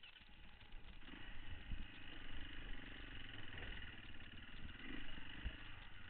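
Beta 525 RS enduro motorcycle's single-cylinder four-stroke engine running as the bike rides a dirt trail, its pitch wavering with the throttle and getting louder about a second in. A few short low thumps come from the bike going over rough ground.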